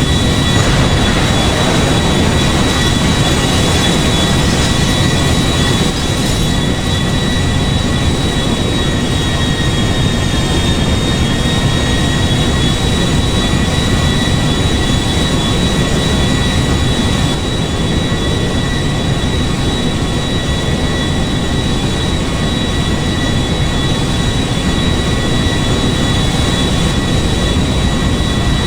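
Steady loud machine noise: a low rumble with a constant high-pitched whine.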